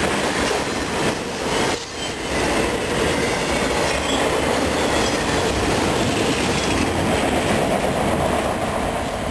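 Freight train cars, autoracks and then double-stack container cars, rolling past: the steady rumble and clatter of steel wheels on the rails, dipping briefly about two seconds in.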